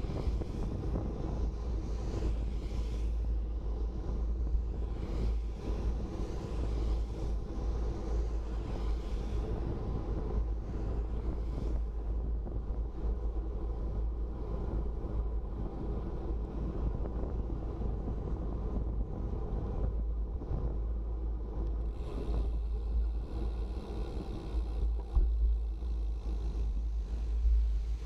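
Steady wind rumble on the microphone of a bicycle-mounted camera while riding, mixed with road noise from cars driving on the wet road alongside.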